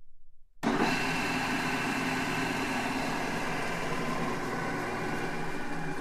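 Large drill press running, a steady machine hum and whine made of several even tones. It starts abruptly at full level just over half a second in.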